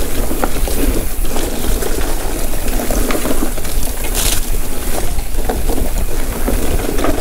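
Wind buffeting the microphone and mountain-bike tyres running over a dirt trail on a fast descent, with scattered knocks and rattles as the bike jolts over the rough ground.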